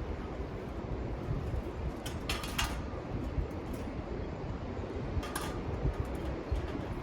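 Metal camping gear clinking and rattling during setup, in two short bouts, about two seconds in and again past the five-second mark, over a steady low rumble.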